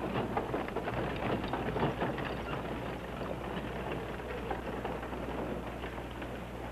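Horse hooves clopping and a wooden-wheeled wagon rolling on a dirt street, a dense crackling patter over a steady low hum.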